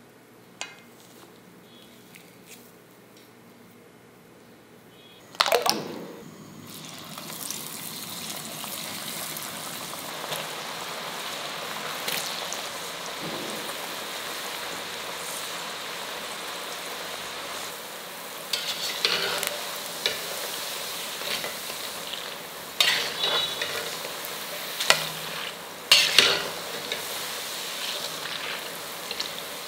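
Faint squishing of ragi pakoda dough at first. About five seconds in a loud sizzle starts as the pakodas go into hot oil, followed by the steady sizzle of deep-frying. Several short louder clatters of a slotted spoon working in the pan come near the end.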